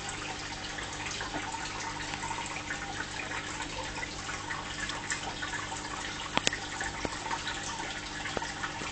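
Fish tank water trickling and bubbling steadily over a low steady hum, with two sharp clicks about six and a half seconds in.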